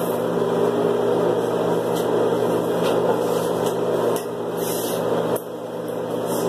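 Steady hum and whir of a small running motor, with short dips in level about four and five seconds in.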